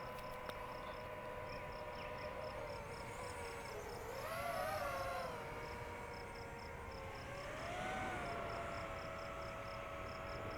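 DJI FPV drone's motors and propellers humming steadily, the pitch swinging up and back down twice as the throttle changes. Crickets chirp in a steady high pulse, about three or four times a second.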